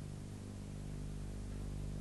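Steady low electrical hum with faint hiss underneath; nothing else sounds.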